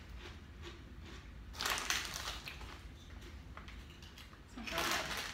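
Kettle-style potato chips being crunched while being eaten, with the chip bag rustling: two short bursts of crunching, about a second and a half in and again near the end, with small crackles between.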